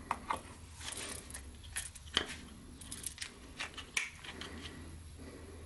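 A knife being drawn from its riveted custom sheath and handled: a string of short scrapes and clicks, the sharpest about two seconds in and again near four seconds.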